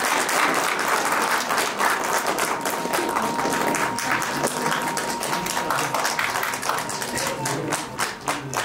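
Audience applauding: many hands clapping together in a dense, steady wash. A thin steady high tone is held through the middle of it.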